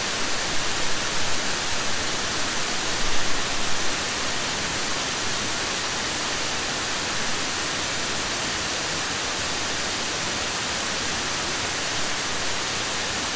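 Ramona Falls, a cascading waterfall, making a steady rushing hiss of falling water up close. It is a little uneven for the first few seconds, then constant.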